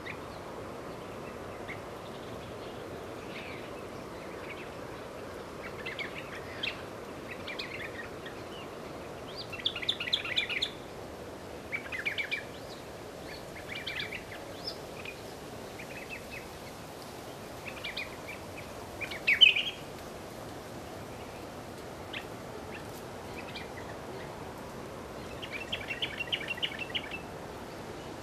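Birds calling in scattered short bursts of quick chirps over a steady background hiss. The loudest burst comes about two-thirds of the way through.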